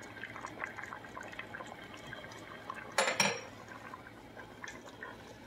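Utensils stirring thick potato soup in a stainless steel stockpot: soft wet stirring and scattered small clicks, with one sharp metallic clatter about three seconds in as a utensil knocks against the pot.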